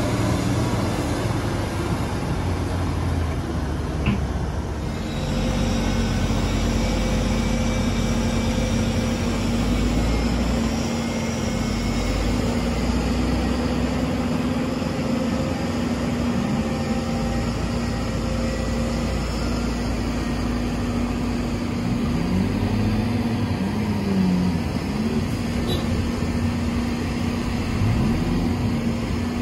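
Heavy diesel engine of an excavator loading sand into a dump truck, running steadily. Its pitch dips and recovers briefly a few times in the second half, as the load on it changes.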